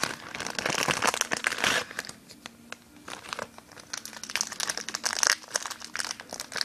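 Small clear plastic bag crinkling as it is handled, in bursts of crackle, heaviest in the first two seconds.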